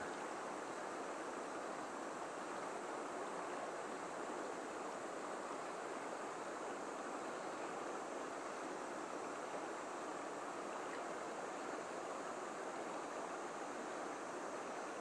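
Steady rushing of a mountain river's current, an even, unbroken wash of flowing water.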